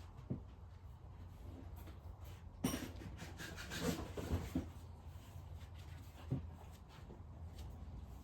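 A few short, light knocks and clatters of engine parts being handled, over a steady low hum.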